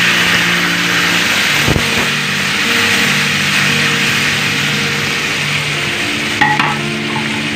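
Lamb pieces sizzling loudly in a hot steel wok as the sauce from their marinade is added and stirred in with a spatula. There is a short metal clank of the spatula against the wok about six and a half seconds in.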